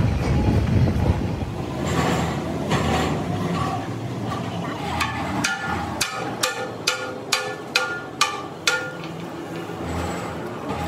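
Low workshop machinery rumble, then about ten ringing hammer blows on a large spoked cast-iron wheel mounted on a lathe, about three a second, ending about three quarters of the way through.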